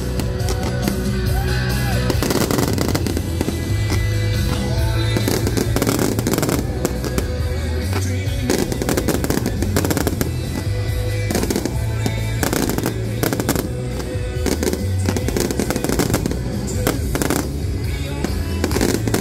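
Aerial fireworks shells exploding one after another, many sharp bangs and crackles throughout, over loud music with a steady bass line playing along with the show.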